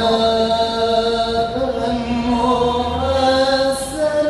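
A man singing into a handheld microphone, holding long notes that slide from one pitch to the next, amplified through a loudspeaker.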